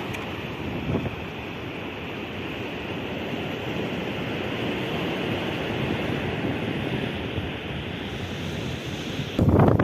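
Steady rushing noise of strong wind, with a sudden louder, rumbling buffet of wind on the microphone near the end.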